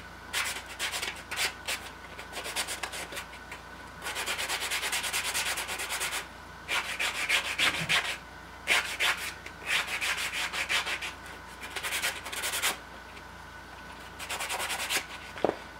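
A small wooden disc rubbed by hand on a sanding block to smooth its edges: rapid back-and-forth scratchy strokes in several spells, with short pauses between.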